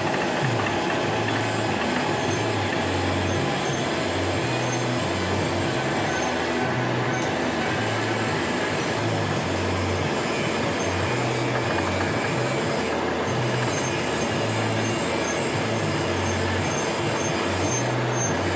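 Milling machine running while cutting a spur gear: a steady mechanical noise with a low hum that wavers up and down about once a second, and faint regular high ticks in the second half.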